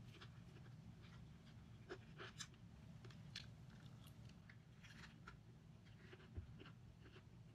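Faint chewing of fried chicken, with scattered small crunches and mouth clicks, over a low steady hum.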